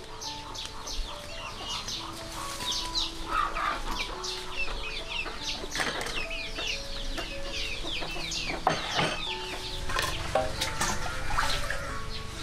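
Chickens clucking and many small birds chirping in quick, falling chirps, over a soft instrumental melody of slow, held notes.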